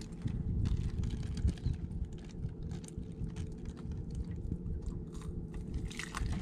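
Close handling noise of a small caught fish being unhooked by hand: scattered small clicks and crackles over a fluctuating low rumble.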